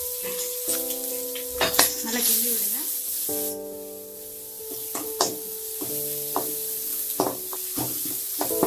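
Sliced onions sizzling in hot oil in a kadai, stirred with a metal ladle that scrapes and clicks against the pan many times.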